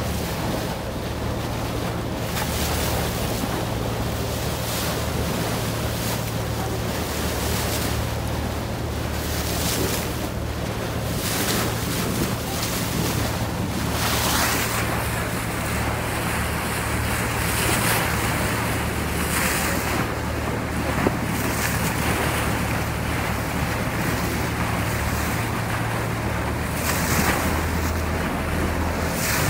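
Boat under way: a steady low engine hum under water splashing and rushing along the hull, with wind buffeting the microphone.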